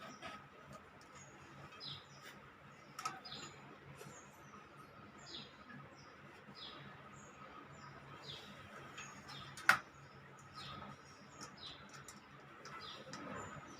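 Small birds chirping, short high falling chirps about once a second over a faint steady hum. A single sharp click about ten seconds in is the loudest sound, with a softer click about three seconds in.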